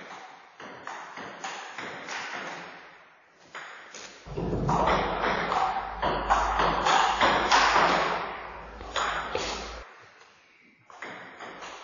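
Table tennis ball clicking off bats and the table in rallies, a quick run of sharp ticks about two a second. From about four seconds in to near ten seconds a louder hiss with a low hum sits under the ticks.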